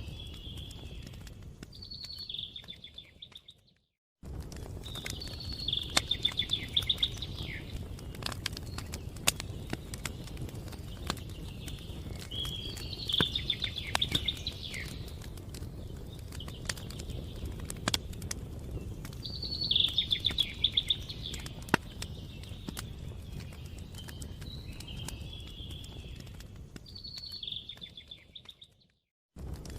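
Wood campfire crackling, with scattered sharp pops over a low steady rustle, while a songbird repeats a short trilled phrase every several seconds. The sound fades out to a moment of silence about four seconds in and again near the end.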